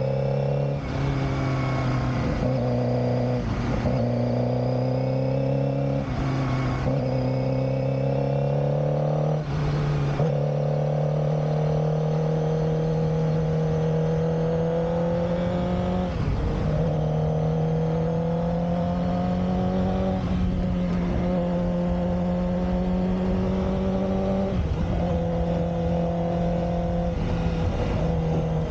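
Suzuki GSX-R600 K7 inline-four engine running under way, its pitch holding steady and creeping slowly upward, with several brief dips where the pitch drops and then picks up again.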